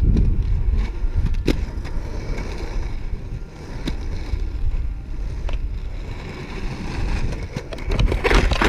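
Inline skate wheels rolling over pavement: a steady low rumble with a few sharp clicks. A louder scraping rush comes near the end.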